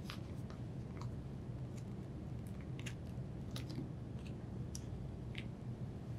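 Faint, scattered small clicks and light handling noises as the front motor supports are pulled out of a refrigerator condenser fan motor assembly, over a low steady hum.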